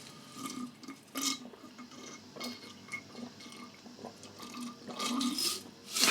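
Faint liquid sounds of a drink, a few short scattered ones and a longer, louder stretch near the end.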